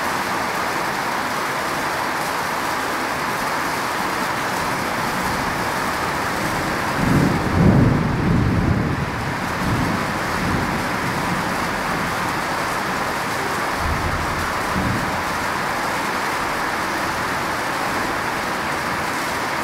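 Steady heavy rainfall, an even hiss. About seven seconds in a low rumble swells for a couple of seconds, with a few fainter low rumbles later.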